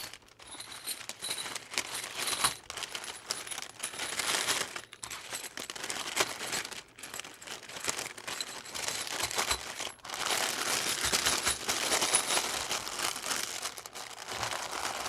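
Plastic packaging crinkling and rustling while small stainless-steel crimp sleeves are bagged, with light metallic clinks of the sleeves knocking together.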